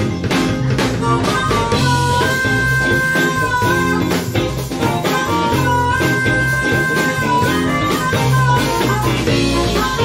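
Live blues band playing: harmonica holding long two-note chords over electric guitar, bass guitar and drum kit. The harmonica's held chords come twice, about 2 and 6 seconds in, each for about a second and a half.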